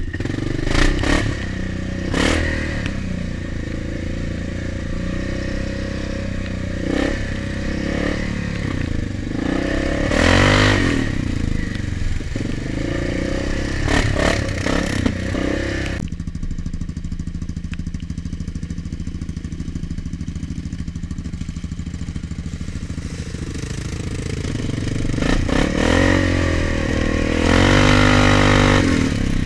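A snorkeled ATV's engine running under throttle on a muddy trail, revving up and falling back about a third of the way in and again near the end. Mud and water spray, and the machine knocks and clatters over bumps. The hiss of the higher noise drops away suddenly about halfway through.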